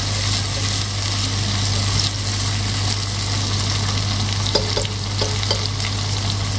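Sliced onions and whole spices sizzling steadily in hot oil in a non-stick pot as they are stirred with a silicone spoon, at the bhuna (sauté) stage of a curry base. A steady low hum runs underneath, and a few soft knocks come about two-thirds of the way through.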